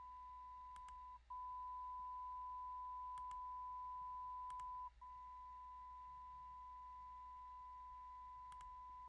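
Steady 1 kHz test tone from a small speaker driven by a Moku:Go waveform generator. It cuts out briefly twice as the waveform is switched from a sum of sine waves to a pure sine and back, and the pure-sine stretch in the middle is a little louder. A few faint mouse clicks.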